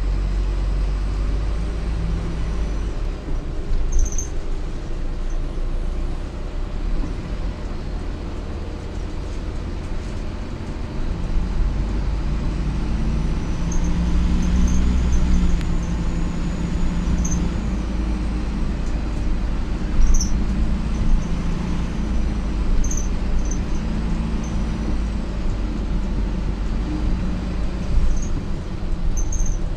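Optare Solo M950 bus heard from inside the passenger cabin while under way: a steady low diesel drone with road noise. The engine note grows louder about halfway through, and a few sharp clicks or rattles come through.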